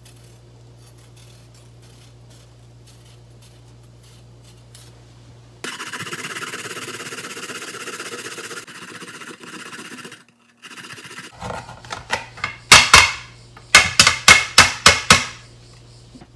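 Daikon radish being peeled with a knife, with only faint scrapes, then grated on a plastic grater box: a steady rasping for a few seconds, then after a short break a run of loud rasping strokes, about two a second.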